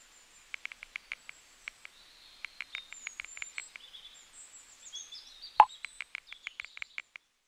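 Smartphone keyboard tap clicks in quick runs as a text message is typed, with one louder message pop a little past halfway. Faint bird chirps behind.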